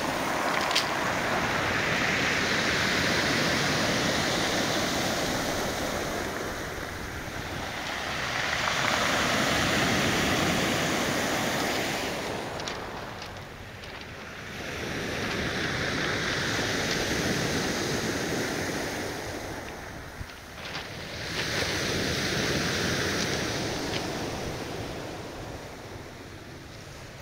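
Surf breaking and washing up a pebble beach, swelling and fading in about four slow surges several seconds apart.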